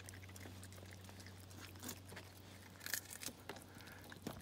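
Baby raccoon eating, with faint, irregular wet clicks and crunches of chewing, a little louder about three seconds in. A steady low hum runs underneath.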